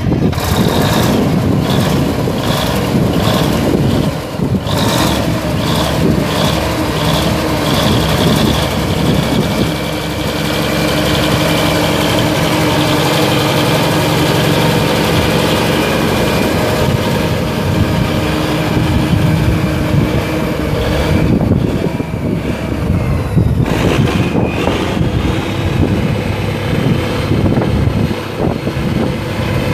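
Cummins NTA-855-C six-cylinder diesel of a 1979 Steiger Panther III ST310 tractor running, pulsing unevenly for the first few seconds before settling into a steady idle.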